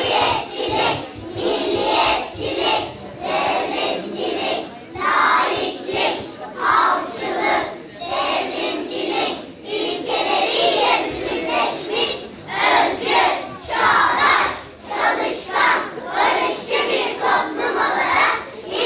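A large group of first-grade children's voices in unison, loud and rhythmic, in short repeated phrases.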